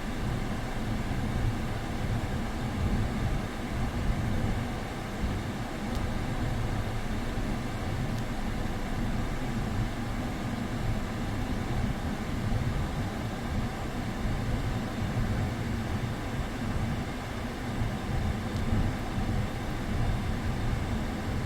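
Hyundai Avante running with its air conditioning on after a refrigerant recharge: a steady, even drone of engine and AC.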